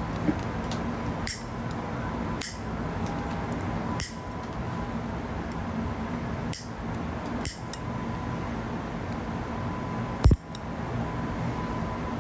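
Nail clipper clipping fingernails: six sharp, separate clicks at irregular intervals, the loudest near the end, over a steady background hum.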